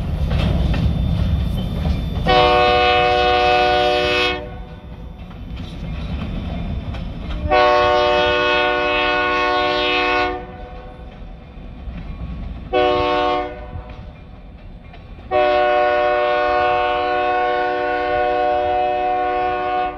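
Freight train rumbling past, then the locomotive's multi-note air horn, on Escanaba & Lake Superior EMD SD40 No. 502, blowing the grade-crossing signal: two long blasts, one short, and a final long one held through the end. This is the warning for the next road crossing down the line.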